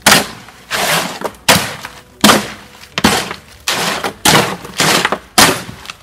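Hoe scraping and chopping through stiff, low-slump concrete with added stone in a metal wheelbarrow, a gritty scrape about one and a half times a second as the mix is worked back and forth.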